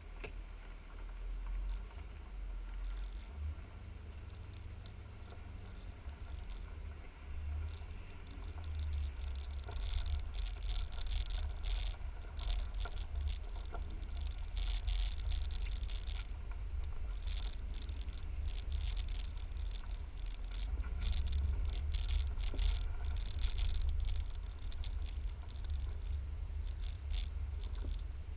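Low, muffled rumble of a BMW sedan's engine and tyres inside the cabin as the car pulls away and drives slowly, getting louder about a third of the way in. Clusters of faint crackling ticks run over it from then on.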